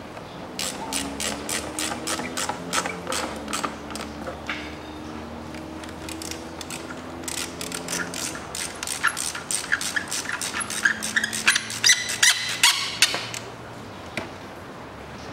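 Hand ratchet clicking in quick runs as it tightens the hose clamp of the rubber air intake duct onto the throttle body. The clicking stops about a second and a half before the end.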